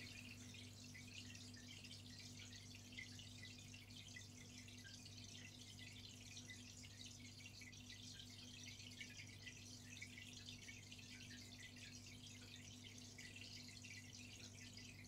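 Faint aquarium filter running: a low steady hum under soft, fine trickling and dripping of water.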